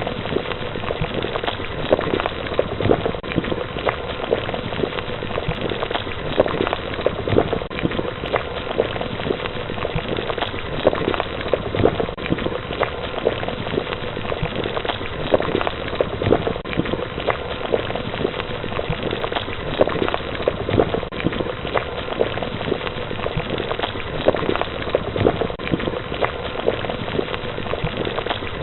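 Water heating toward the boil: a steady bubbling with a dense stream of small, irregular pops.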